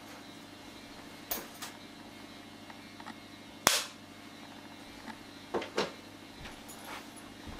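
A film clapperboard snapped shut once with a single sharp clap about halfway through, with softer clicks and knocks from handling the board before and after. A steady low hum runs underneath.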